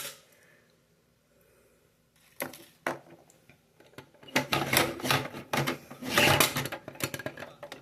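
Small plastic and paper packaging of a blind-box mini figure being handled and opened: a sharp click at the start, then from about two and a half seconds in a dense run of rustling, crinkling and clicking.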